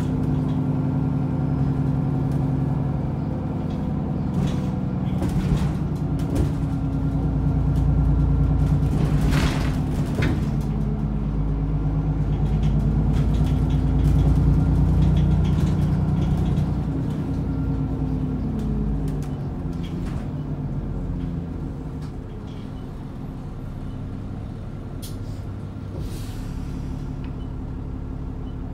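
ADL Enviro400 double-decker bus engine running, rising in pitch and getting louder as the bus pulls away, then easing off and quieter after about seventeen seconds. A short hiss of air comes about nine seconds in.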